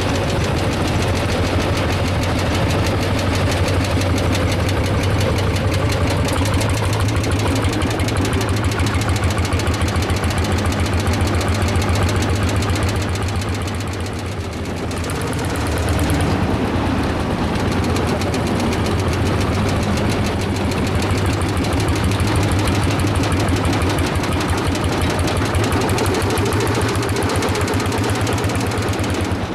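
Single-cylinder two-stroke semi-diesel tractor engines running on the road, each firing stroke a distinct knock in a rapid, even beat. The sound dips briefly about halfway through, then the beat returns close up.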